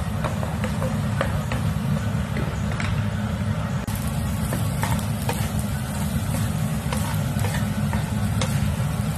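Vegetables and rice being stir-fried in a pan: sizzling, with frequent short scrapes and taps of the spatula against the pan, over a steady low rumble.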